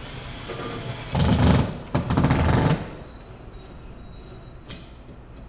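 Cordless drill tightening the screw of a drywall molly anchor through an L bracket, setting the anchor behind the wall, in two short runs of under a second each.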